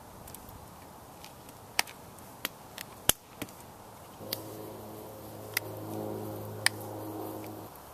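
Obsidian being pressure-flaked into an arrowhead with a hand-held flaker against a leather hand pad: sharp, irregular clicks as flakes snap off, about eight in all. A steady low hum comes in about halfway through and stops just before the end.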